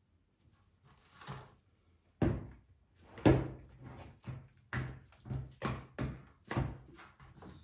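A series of sharp knocks, starting a couple of seconds in and settling into about two a second.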